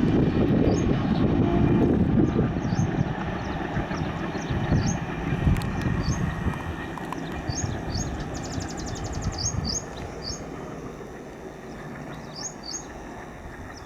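Passenger express train running on the rails at speed, its rumble fading steadily as it moves away. Small birds chirp over it, with a quick trill about two-thirds of the way through.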